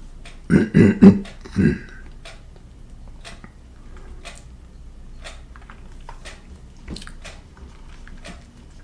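Scattered faint clicks and crackles at irregular intervals over a low, steady background, after a brief voice near the start.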